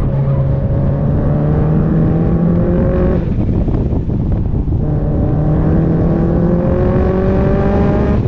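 Car engine and exhaust under hard acceleration uphill. The revs climb for about three seconds, drop away at an upshift, then climb again steadily through the next gear to the end.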